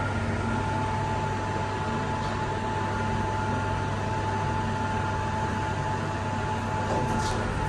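Schindler 3000 traction elevator car travelling down: a steady low hum and a steady whine under a haze of air and ride noise, with a short high sound near the end.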